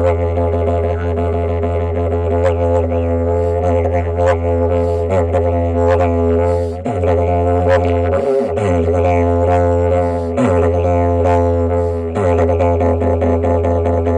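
Didgeridoo playing a steady low drone with shifting overtones and rhythmic accents; the drone dips briefly a few times, around the middle and again near the end.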